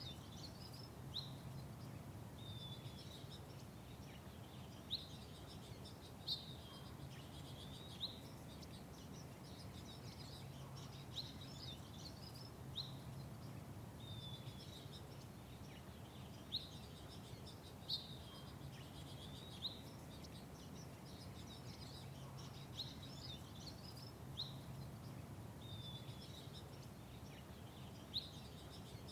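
Small songbirds chirping: short, sharp single chirps repeated every second or two, over a low steady hum of background noise.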